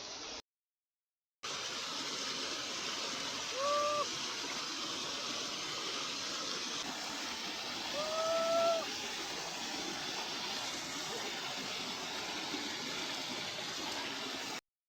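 Small waterfall rushing steadily. Two short pitched calls rise over it, one about three and a half seconds in and one about eight seconds in.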